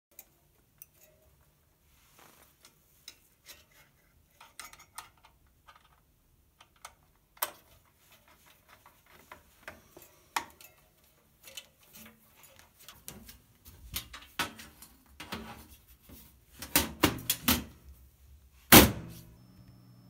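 Scattered clicks, taps and knocks of hands handling parts inside an open desktop PC case while the copper CPU cooler and its fan cable are refitted after a processor swap. The knocks grow denser and louder in the last few seconds, the loudest a single sharp knock shortly before the end.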